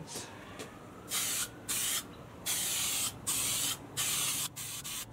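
Aerosol spray paint can hissing in about five short bursts, each under a second, with brief pauses between them: a light first coat being sprayed on.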